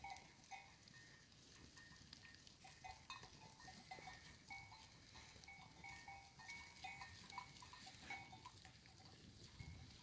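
Faint bells on a grazing flock of sheep ringing irregularly. The notes are short and sit at a few fixed pitches.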